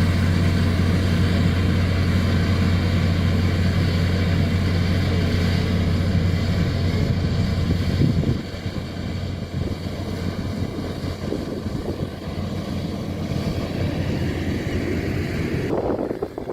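Komatsu D41P bulldozer's diesel engine running loud and steady, then dropping to a lower, more uneven level about eight seconds in, and falling away sharply near the end.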